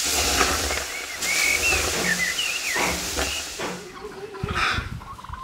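Liquid poured into a hot clay tandoor, hissing loudly into steam as it hits the oven's walls. The hiss starts suddenly and dies away after about three and a half seconds, with birds chirping over it.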